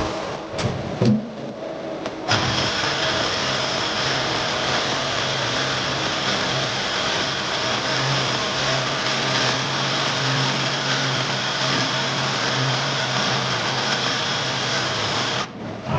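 CNC lathe turning 7075 aluminium: a steady machining noise with a low hum and a high whine. It starts suddenly about two seconds in and stops suddenly shortly before the end, after a few clicks at the start.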